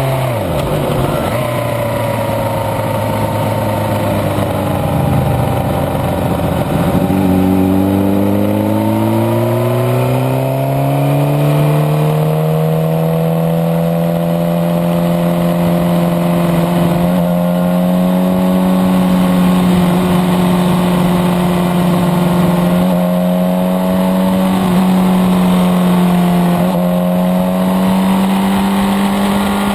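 Suzuki GSX-R sport bike's inline-four engine heard onboard: off the throttle with the revs falling and staying low, then the revs climb between about seven and twelve seconds in after a downshift from fourth to third, and the engine holds a steady pitch at part throttle for the rest.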